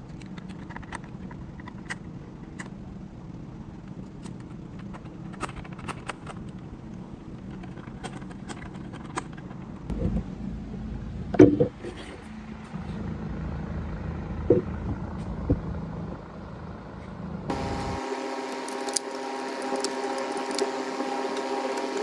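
A hand screwdriver driving screws into a plastic grille frame: scattered small clicks and knocks of tool and plastic parts, with a few louder knocks about halfway, over a steady low hum. Near the end the low hum stops and a steady buzz of several tones takes over.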